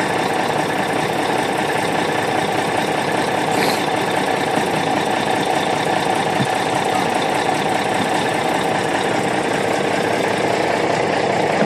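Boat-hauling truck's engine idling steadily.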